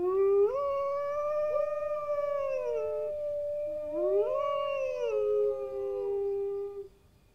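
Canine howling: two long howls, each rising, holding and sliding down in pitch. The second starts about four seconds in and is overlapped near its end by a second lower howl, and both stop just before seven seconds.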